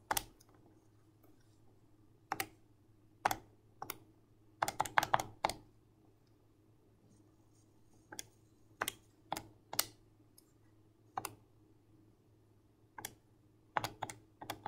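Keys of a TI-84 Plus Silver Edition graphing calculator being pressed one at a time: irregular short plastic clicks, with a quick run of several presses about five seconds in. A faint steady hum lies underneath.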